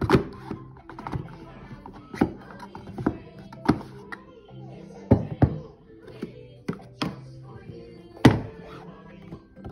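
A hard sunglasses case being handled: about a dozen sharp knocks and taps as its lid is opened and shut and it bumps against the cardboard box, the loudest right at the start and about eight seconds in. Background music plays throughout.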